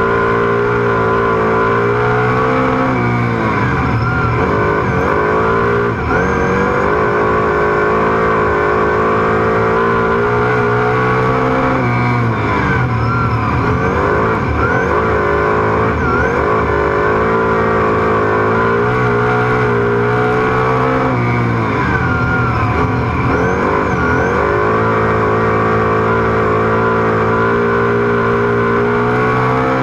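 Superstock speedway car's V8 engine at full race throttle, recorded on board: the note holds steady at high revs down each straight, then drops and breaks up through each turn, three times, with brief squeals during the turns.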